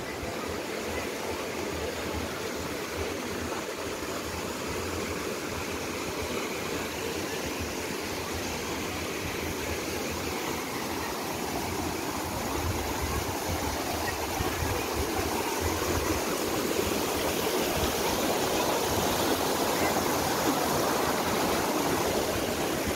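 Mountain stream rushing over rocks and small cascades, a steady wash of water noise that grows gradually louder toward the end.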